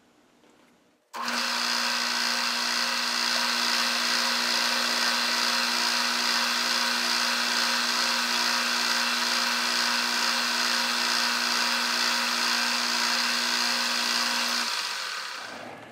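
Metal lathe switched on about a second in, running steadily with a constant motor hum and gear whine, then switched off near the end and running down.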